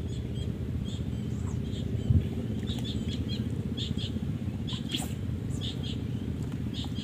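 Small birds chirping in short, quick calls again and again over a steady low rumble. A single low thump about two seconds in.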